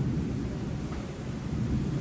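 Heavy rainstorm: a low, uneven rumble under an even hiss of rain and wind.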